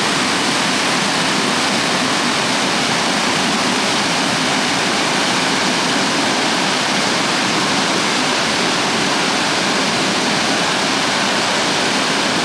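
Waterfall falling down a rock cliff and splashing onto boulders: a steady, loud rush of water.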